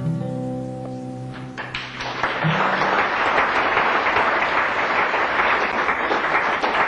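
The last notes of a solo acoustic guitar ring out, closing a song. About two seconds in, audience applause and clapping rise and carry on steadily.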